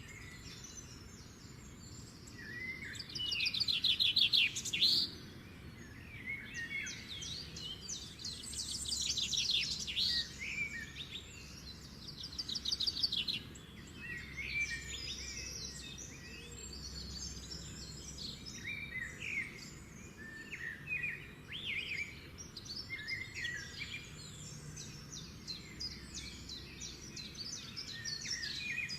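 Birds chirping and calling, with several rapid trills and many short high chirps.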